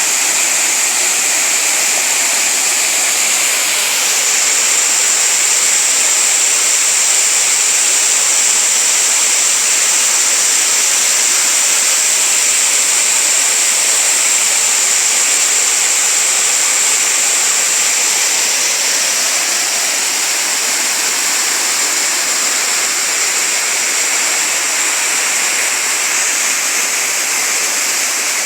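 Waterfall: water falling and rushing into a stream in a steady, loud, dense roar without a break.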